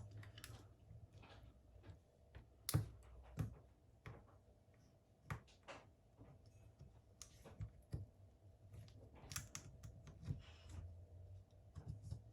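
Faint, irregular clicks and scrapes of small hand tools working on an opened smartphone, prying at its glued-in battery.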